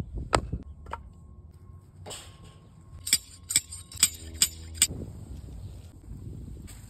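Sharp wooden clacks of split kindling sticks being laid onto a stack, about eight separate knocks with a quick run of louder ones between three and five seconds in.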